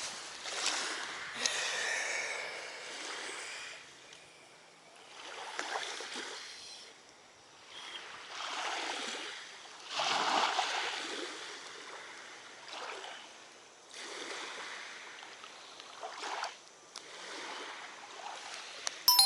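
Small waves of lake water lapping, swelling and fading every couple of seconds.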